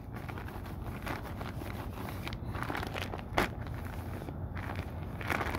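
Plastic packet of coconut flakes crinkling and rustling as it is wiped down with a disinfectant wipe, with a few sharper crackles, the loudest about three and a half seconds in.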